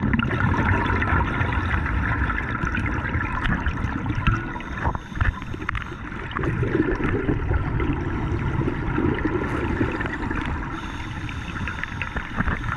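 Underwater water noise heard through a dive camera's housing: a continuous rushing and gurgling of water in a high-flow cave, dipping briefly about five seconds in.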